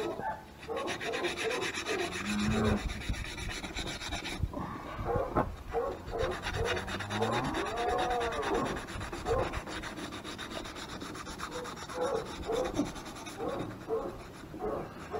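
Cloth rubbing in short, irregular strokes over the metal body of a tractor's single-spool rear remote hydraulic valve, cleaning and polishing the sealing surface by hand. A rising and falling whine comes in about halfway through.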